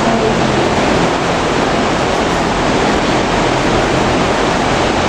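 Loud, steady rushing noise with a faint low hum under it: the background din inside a freestall dairy barn.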